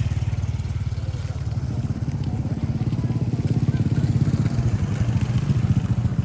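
A small engine running steadily at a constant speed, with a fast, even pulsing beat and a low rumble.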